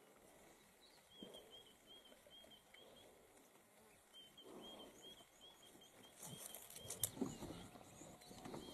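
Faint wild outdoor ambience: a short high chirp repeated about three times a second, with soft rustling and a single sharp crack about seven seconds in.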